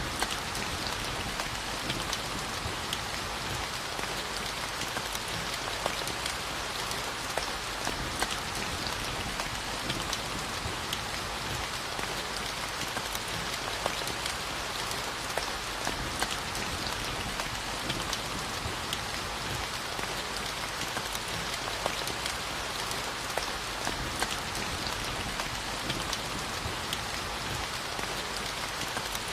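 Steady rainfall on a surface: an even hiss of rain with scattered individual drop ticks.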